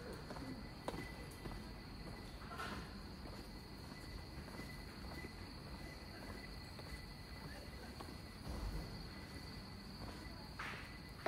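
Night insects trilling steadily on one high pitch over a low background rumble, with a few faint knocks.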